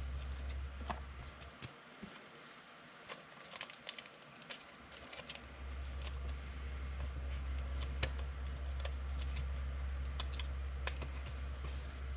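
Scattered light clicks and taps over a low steady hum; the hum drops away for a few seconds about two seconds in.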